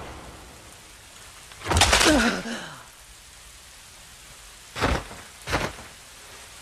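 Steady heavy rain. About two seconds in comes a loud burst with a falling pitch, and near the five-second mark two short sharp hits, fight sound effects of blows landing.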